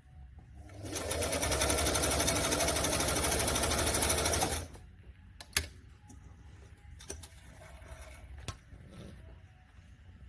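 Singer 348 sewing machine running at speed for nearly four seconds, stitching through thick material, then stopping. A few sharp clicks and knocks follow.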